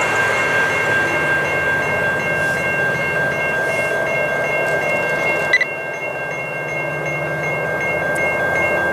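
Grade-crossing warning bells ringing steadily in an even, repeating rhythm over a low rumble. A sharp click comes about five and a half seconds in.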